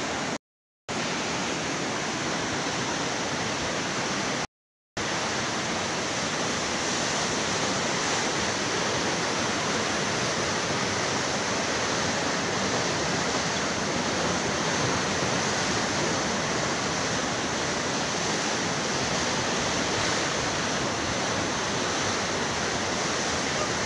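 Muddy floodwater rushing fast down a concrete-walled channel, a loud, steady rush of water. The sound drops out briefly twice in the first five seconds.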